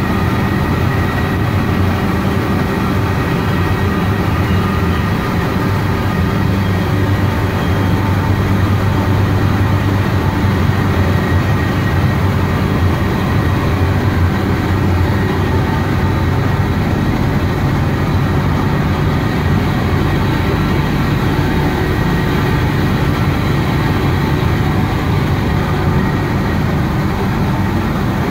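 Fischer & Krecke gearless flexographic printing press running, a loud steady machine drone with a few faint steady tones above it.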